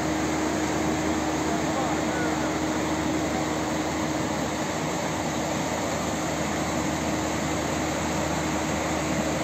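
Muddy floodwater rushing through a street: a steady, even rushing noise with a low steady hum under it.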